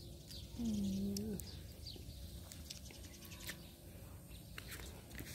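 Small birds chirping faintly and intermittently, with one low, drawn-out tone lasting under a second about half a second in.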